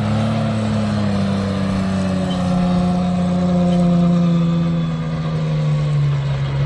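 Unimog engine running at high revs under heavy load up a sandy slope. Its pitch is highest early on and sags slowly as the truck labours up the climb.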